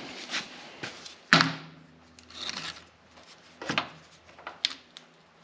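Workshop handling noises: one sharp clunk a little over a second in, then a few lighter knocks and clicks as things are moved about.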